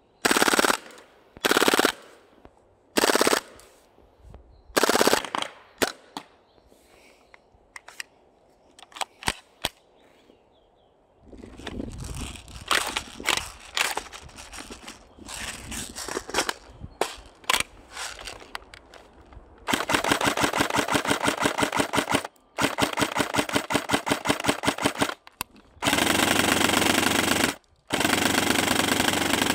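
Airsoft rifles firing: short separate bursts during the first ten seconds, then long full-auto strings from about twenty seconds in, broken by a few short pauses.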